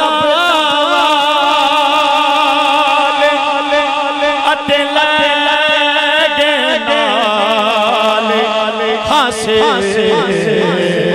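Male naat reciter singing long, drawn-out notes without clear words, his voice wavering in quick melismatic ornaments and sliding lower near the end.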